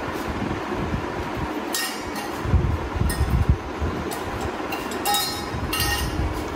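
Several light metallic clinks from a wire dog crate rattling as a beagle puppy moves about inside it, over a steady low rumble.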